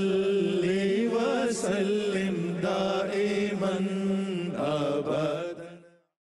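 Background music: a chanted vocal melody over a steady low drone, fading out near the end.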